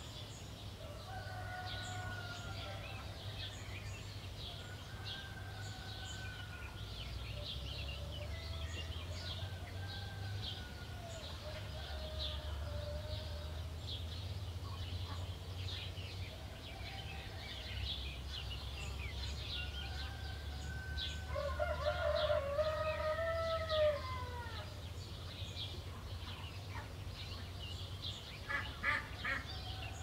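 Roosters crowing again and again, one long crow louder than the rest about three-quarters of the way through. Small songbirds chirp high and quick all along, over a low steady hum.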